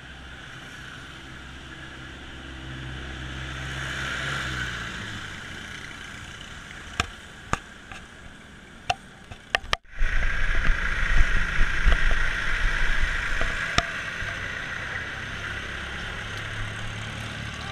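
Road noise from riding a bicycle in traffic: a steady vehicle hum with a few sharp clicks. The sound cuts out suddenly about ten seconds in and comes back as louder, gusting wind on the microphone over traffic noise.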